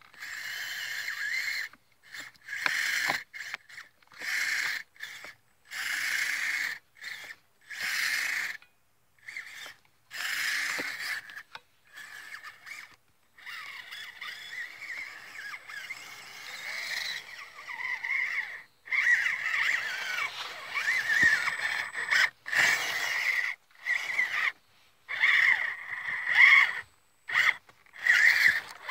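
ECX Barrage Gen2 RC crawler's electric motor and gear drivetrain whining in repeated short throttle bursts with gaps between, working through deep snow; the pitch wavers in some bursts.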